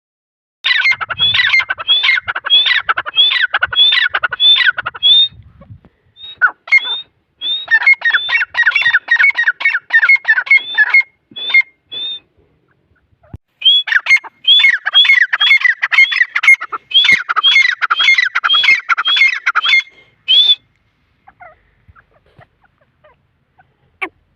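Teetar (francolin) calling: rapid strings of repeated sharp call notes, about two a second, in three long bouts with short pauses between them, falling quiet near the end.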